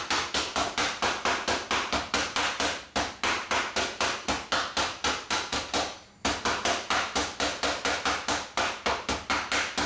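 Kitchen mallet pounding slices of meat covered with a cloth on a board: rapid, even strikes about four or five a second, with a brief pause about six seconds in. The meat is being beaten to break its fibres so it cooks tender.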